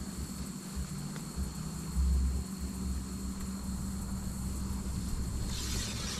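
Insects chirring steadily at a high pitch, over a constant low rumble, with a short rustle near the end.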